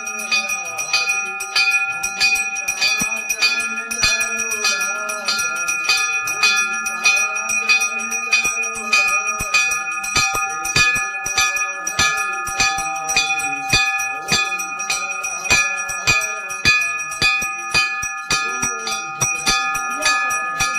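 Large brass temple bell hung by a chain, rung by hand over and over at about two to three strikes a second, its clear ringing tone sustained between strokes.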